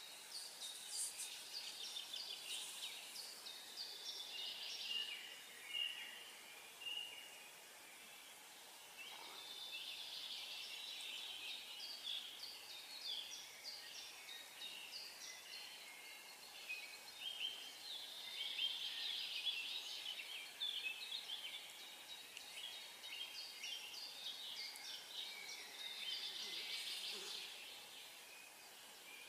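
Several small songbirds chirping and singing over one another in a busy chorus, which thins briefly about a quarter of the way in and again near the end.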